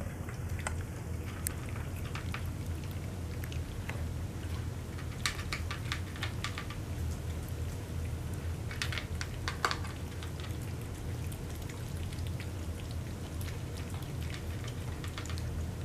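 Several cats chewing and licking wet cat food off a shared platter: scattered soft, wet clicks and smacks, over a low steady hum.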